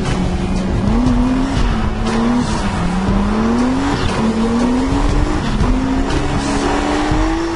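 A car engine accelerating hard through the gears: the pitch climbs, drops back at each shift and climbs again, about four times.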